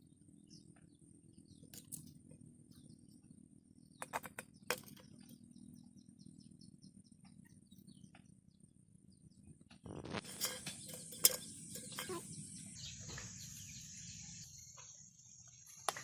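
Handling noises from crafting: a few faint clicks and taps, then about ten seconds in a louder stretch of rubbing and sharp clicks.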